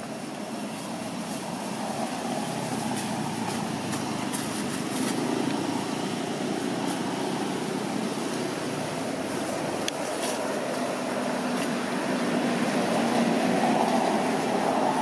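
A passing motor vehicle: a steady engine and road rumble that builds and is loudest near the end, with a few faint sharp clicks.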